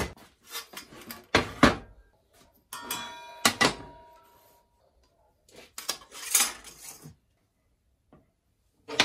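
Wooden boards and a steel fence bar being set down and shifted on a table saw's metal top: a series of knocks and clatters, one with a brief metallic ring about three seconds in, then a pause and a last knock near the end.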